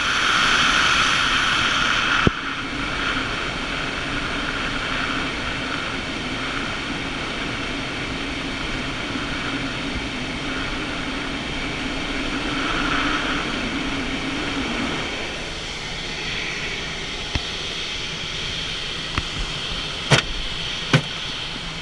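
Steady in-flight noise inside a glider cockpit: air rushing over the canopy, with a low steady hum that fades out about 15 seconds in and a few sharp clicks near the end.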